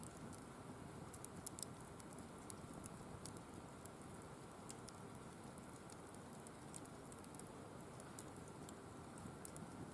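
Firewood burning in a wire-mesh fire pit, crackling with scattered sharp snaps and pops over a faint steady rush.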